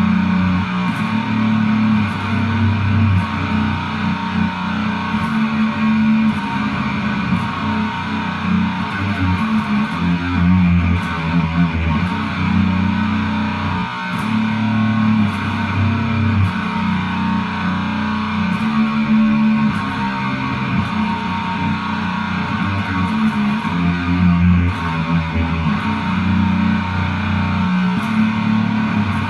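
Music led by guitar, with a steady bass line, playing throughout.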